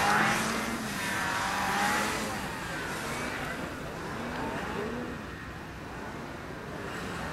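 Several racing snowmobile engines revving up and easing off as the sleds run the track. One passes close at the very start, the loudest moment, and the others sound farther off.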